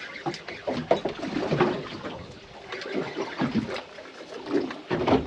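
Water lapping against the hull of a small drifting boat, with faint, indistinct talk.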